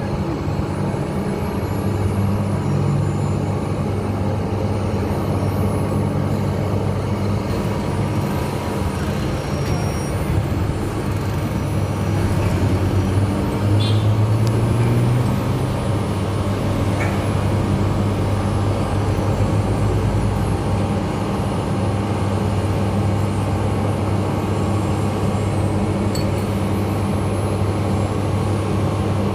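A large engine running steadily, its pitch rising briefly about halfway through.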